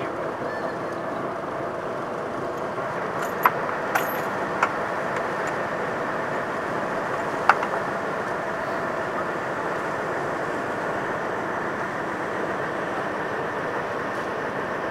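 Steady drone of the lifeboat's engines heard from on deck as the boat stands by, with four short sharp clicks, three of them about three to five seconds in and one around seven and a half seconds.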